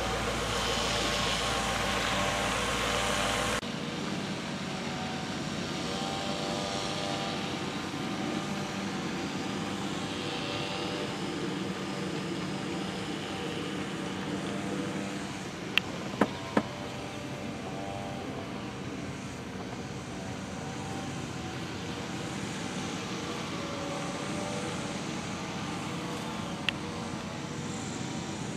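A steady engine drone runs throughout, with three sharp clicks about 16 seconds in and another near the end.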